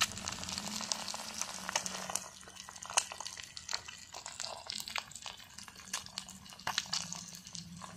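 Eggs frying in a black pan over an open fire: a steady sizzle with many small crackling pops.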